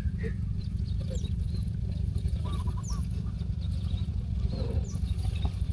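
A few faint bird chirps, short notes that slide down in pitch, over a steady low rumble.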